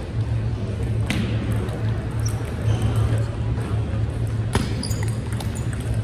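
Table tennis ball ticking off paddles and the table: a few sharp clicks, the loudest about a second in and two more around four and a half and five seconds, over a steady low hum.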